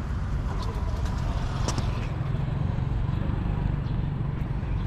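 Outdoor street ambience heard on a handheld camera while walking: a steady low rumble of distant traffic, with a few light footstep clicks, the clearest about two seconds in.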